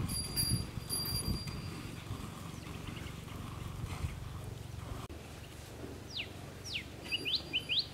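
Cow being milked by hand: streams of milk squirt rhythmically into a steel pail of frothy milk. Near the end a bird calls, two falling whistles followed by a run of quick rising chirps.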